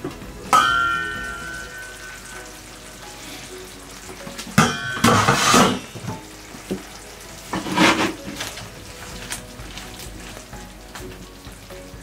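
A metal pot lid clanks with a ringing tone about half a second in as the pot is uncovered. Bursts of clatter and scraping follow around five and eight seconds, over a steady sizzle from the simmering pot.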